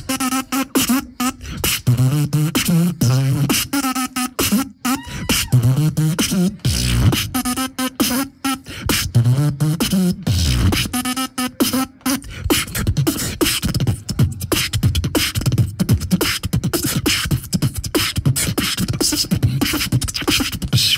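Solo beatboxing into a microphone. For about the first twelve seconds, pitched vocal bass and melody lines run over mouth-drum kicks and snares. After that comes a fast, dense run of percussive clicks and snares.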